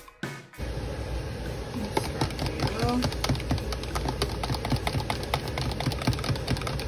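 Small handheld battery mixer whirring as it whisks pigment into soap batter in a plastic cup, its whisk rattling and clicking against the cup's sides. It starts about half a second in, right after a bit of music ends.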